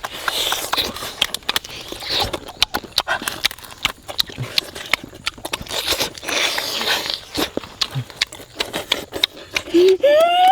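Someone eating crunchy food up close: repeated sharp crunches and chewing clicks with bursts of rustling.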